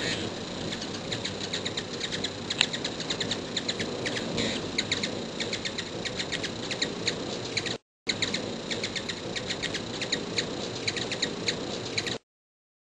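Hummingbirds chipping up close: rapid, sharp, high chip notes repeated several times a second over a steady background hiss. The sound cuts out briefly about eight seconds in and stops a second before the end.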